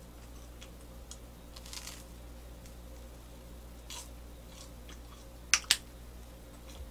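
Crisp butter-toasted white bread being bitten and chewed close to the microphone: soft crunches, then two sharp, loud crunches in quick succession near the end.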